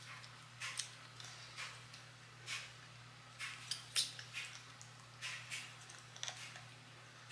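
Small plastic clicks and crinkles, about one a second, as the cap and pull-tab seal of a plastic breath-rinse bottle are picked at. A faint steady hum runs underneath.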